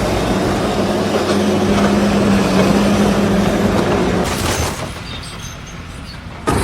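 Steady mechanical engine rumble with a low hum, dropping away about five seconds in, then cutting off abruptly near the end.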